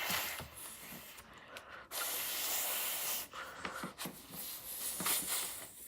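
A breathy rush of air lasting about a second and a half in the middle, with faint rustling before and after it.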